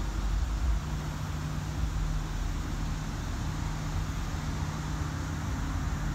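Steady low background rumble with a hiss over it, and a steady low hum that comes in about a second in.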